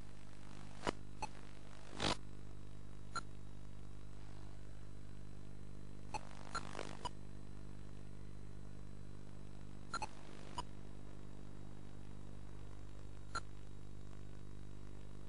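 Steady low electrical buzz from an analog FPV video link's audio channel, unchanging in pitch, broken by scattered sharp static crackles. The loudest crackle comes about two seconds in.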